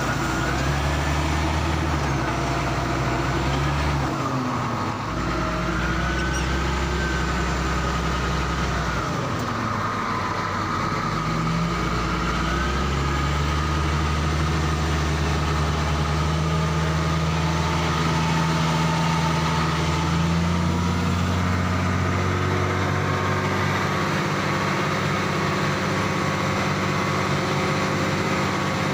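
Heavy diesel engine running, its revs stepping up and down several times, with a faint wavering squeal above it for a few seconds near the start.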